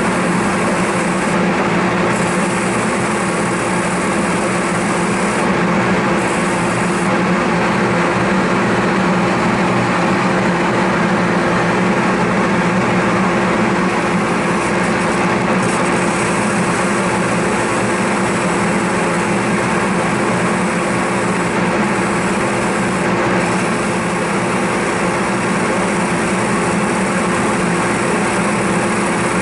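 A French wheel's motor and a shop dust collector running together: a steady hum over a constant rushing noise, the abrasive wheel turning at about 300 to 400 RPM.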